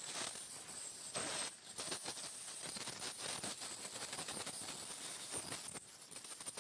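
Ultrasonic dental scaler working on a dog's teeth: a steady high-pitched whine with dense crackling as the vibrating tip chips tartar off the teeth.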